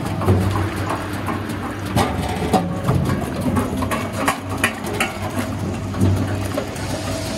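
Stainless steel potato strip-cutting machine running with a steady motor hum, with irregular knocks and clatter as potatoes are cut and the strips drop out.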